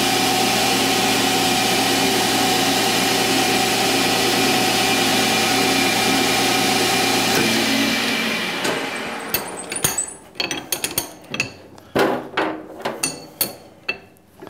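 Metal lathe running steadily with a center drill spotting the steel workpiece, then the machine winds down about eight seconds in. A series of sharp metal clicks and knocks follows as the tailstock drill chuck and tooling are handled.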